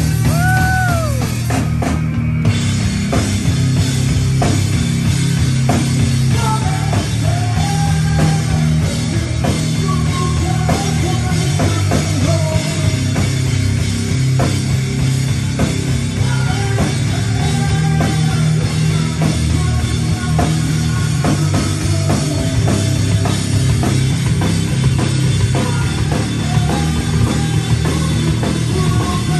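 Live rock band playing loudly: electric guitar, bass guitar and drum kit, with a melodic line arching up and down over a steady heavy low end.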